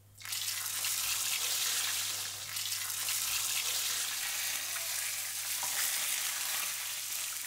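Food frying in hot oil in a frying pan: a steady sizzling, crackling hiss that starts abruptly just after the beginning.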